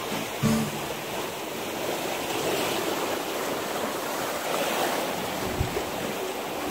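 Rough sea surging and washing against the rocks, with wind buffeting the microphone.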